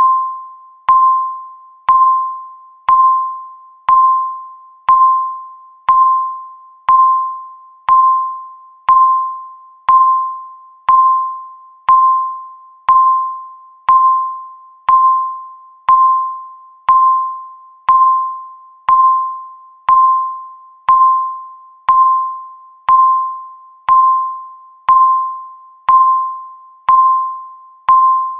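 Countdown-timer beep, one short chime-like tone each second, marking each second left. Every beep starts with a sharp click and fades quickly before the next.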